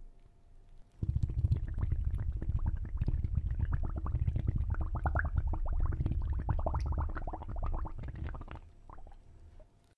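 Rapid bubbling and gurgling water with a low rumble, starting about a second in and fading out near the end.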